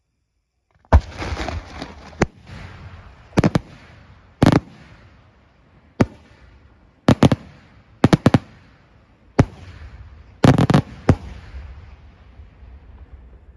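Aerial firework shells bursting: after about a second of silence, a series of sharp bangs, several coming in quick doubles and triples, each trailing off in echo.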